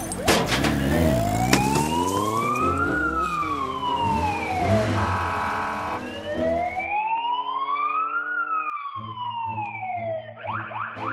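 Police car siren wailing in slow rises and falls, about two full cycles, over a low vehicle rumble in the first half. A few sharp clatters of breaking debris right at the start, and background music comes in during the second half.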